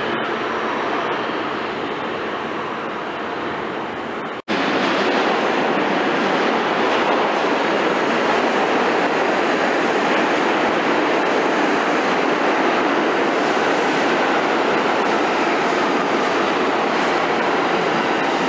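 New York City subway train running through an underground station: a steady rumble of wheels and traction motors that breaks off for an instant about four and a half seconds in, then comes back a little louder.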